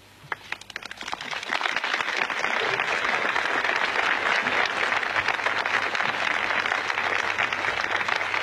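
Crowd applauding after a speech. A few scattered claps come first and swell within about two seconds into steady, full applause.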